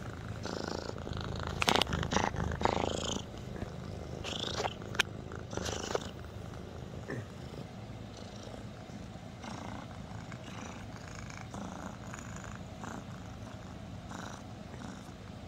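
A cat purring steadily, with a few scuffs and clicks in the first six seconds as it grabs and bites at a hand.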